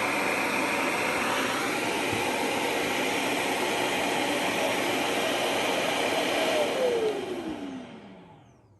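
PAWHAUS pet grooming vacuum running steadily on the third of its three settings, then winding down near the end, its motor whine falling in pitch as the level drops away.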